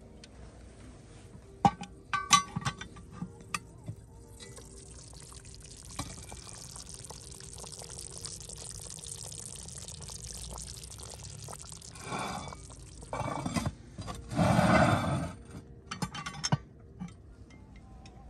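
Gravy of a pot roast simmering and bubbling in an open cast-iron camp oven, a steady hiss and bubbling. Clinks and knocks of the metal lid come at the start and near the end, with a loud scrape of metal on metal about a second long as the lid goes back on.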